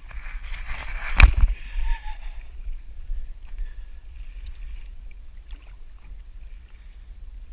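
Kayak paddle splashing in the sea, with one sharp knock about a second in, then quieter splashes; wind rumbles on the microphone throughout.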